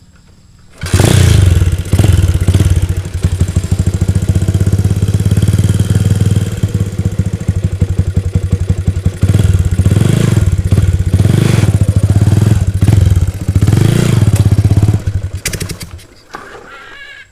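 A Honda single-cylinder four-stroke engine (GL block with Tiger internals) in a CB-bodied motorcycle starts about a second in and runs loud for about fifteen seconds. It is blipped up in revs four times before it is switched off near the end. The engine is noisy, and the owner says it needs a full service.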